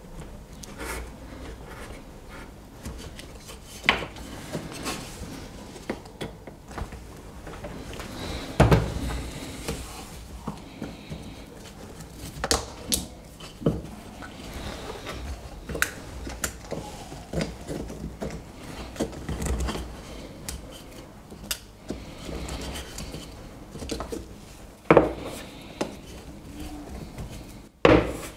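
A knife and then diagonal side cutters prying, scraping and snipping at the black plastic casing of a 9-volt alkaline battery on a wooden board: irregular clicks and scrapes, broken by several sharp snaps as pieces of the casing crack off.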